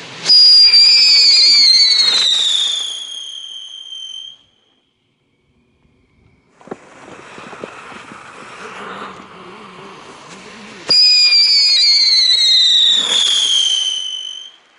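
Funke Tornado Wirbel whistling spinner fireworks: two go off about ten seconds apart, each with a loud whistle that falls in pitch over about four seconds. Between them there is a quieter hiss and crackle of burning sparks.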